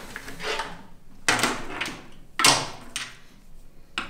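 Coiled network patch cables being handled and untangled, rustling and knocking against the battery casings. Two louder scrapes come about a second and two and a half seconds in.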